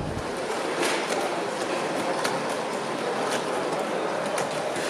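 G scale model train wagons rolling along the track, their wheels clicking at irregular intervals over the rail joints, over the steady background noise of the exhibition hall.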